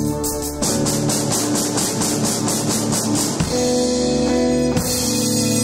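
Live chamber ensemble with cello and electric guitar playing an original score: held notes give way about half a second in to a busier, drum-driven passage, and sustained chords come back in sharply a little past halfway.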